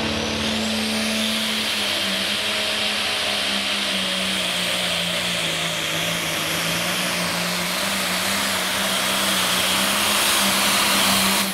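Super/Pro Stock pulling tractor's engine running flat out under load as it drags the weight-transfer sled, with a high whine over the engine note that rises in pitch in the first second. The sound grows a little louder toward the end of the pull.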